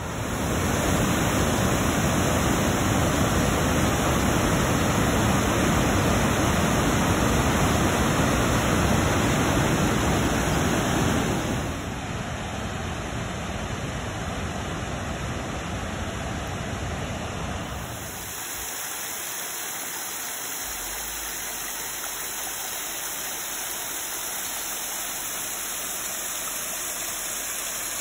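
Rushing whitewater of the Rogue River pouring through a narrow rocky gorge: a steady, loud rush of water. About twelve seconds in it drops a little, and about eighteen seconds in it drops again and turns thinner, with much less deep rumble.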